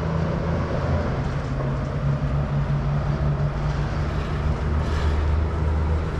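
Steady traffic noise from vehicles on a nearby road bridge: a continuous low engine hum over a wash of tyre noise.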